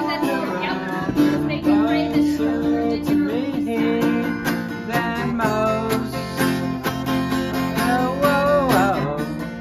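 Acoustic guitar strummed in steady chords, with a voice singing along.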